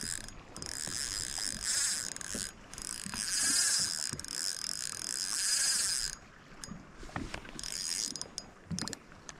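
Spinning reel's drag buzzing as a hooked fish pulls line off it. It comes in a few runs, the longest about three seconds, then two short bursts near the end.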